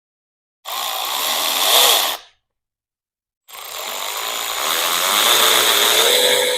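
Handheld power tool motor running in two bursts, a short one and then a longer one of about three seconds, its whine wavering in pitch as it spins.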